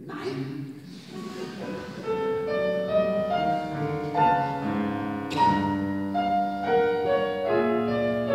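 A piano playing classical music, a run of ringing notes and chords.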